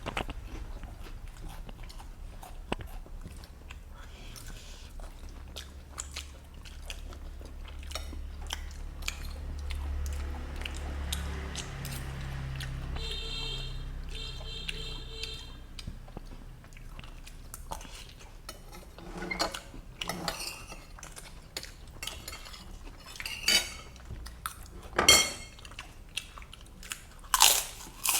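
Close-up eating sounds of fried noodles: chewing and crunching, with spoons clinking and scraping on plates, a few louder clinks near the end. About halfway, two short high-pitched tones sound.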